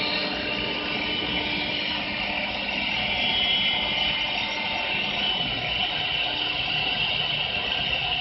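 Double-axis CNC wood lathe cutting two wooden spindles at once. The tools bite the spinning wood in a steady, even noise, with a high whine held throughout.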